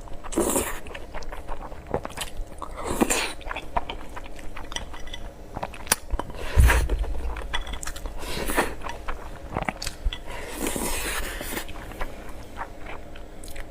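Close-miked chewing, with wet mouth clicks and smacks, of someone eating pork belly with rice. One low thump comes just past the middle and is the loudest sound.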